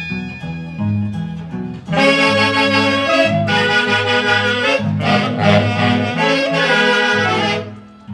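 Orquesta típica from Huancayo playing: a quieter passage over a stepping bass line gives way, about two seconds in, to the saxophones entering loudly with a full, sustained melody. The band breaks off briefly near the end.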